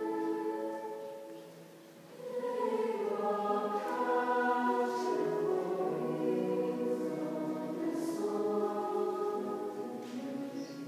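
High school concert choir singing sustained chords. The sound thins out to a soft phrase end about a second in, then swells back up around two seconds in.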